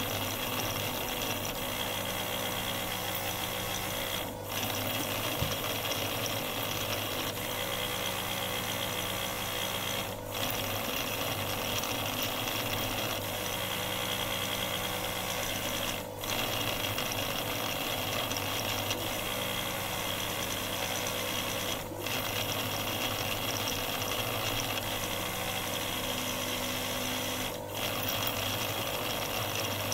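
Small electric bench machine for restoring the sealing end of a Bosch common-rail piezo injector valve pin, running with a steady buzz and low hum. It dips briefly about every six seconds as it cycles.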